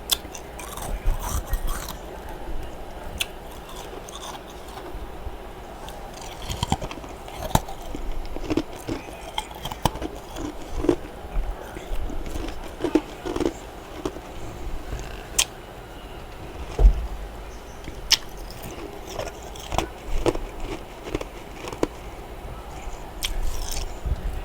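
Person biting and chewing freezer frost close to the microphone: irregular sharp crunches over a steady low background noise.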